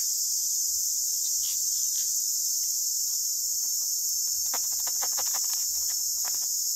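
Steady high-pitched chorus of insects in tropical forest, with a cluster of small clicks about two thirds of the way through as a freshly caught fish is handled and unhooked.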